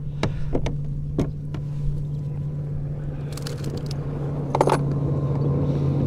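Sharp clicks and knocks of a flounder being handled and laid on a plastic measuring board on a kayak deck, over a steady low hum, the trolling motor holding the kayak in place on spot-lock.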